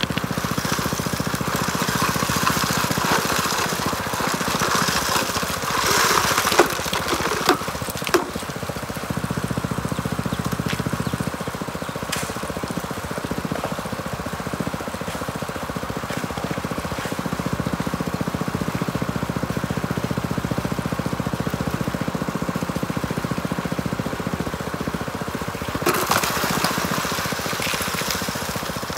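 Small engine-driven water pump running steadily to feed a Gold Hog Piglet high banker, with water and gravel washing through. A few sharp knocks come about six to eight seconds in, and a louder rush near the end.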